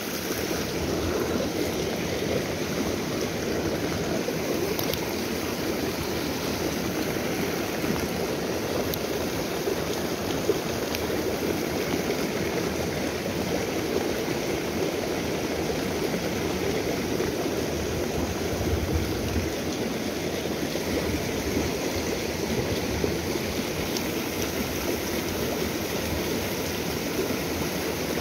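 Small stream's water running steadily: a continuous, even rushing with no pauses.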